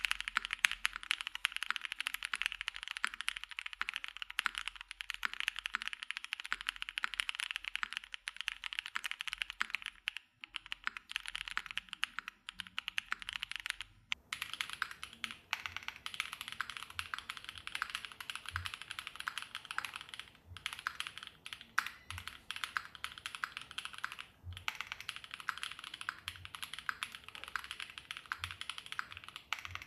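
Fast, continuous typing on a Pixelspace Shadow80 custom mechanical keyboard: a dense stream of rapid key clacks. About halfway through the sound changes in character, and soft deeper thuds come every second or two.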